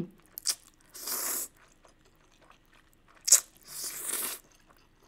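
Noodles being slurped from chopsticks in two short slurps, about a second in and again about four seconds in. A sharp click comes just before each slurp, the second one loud.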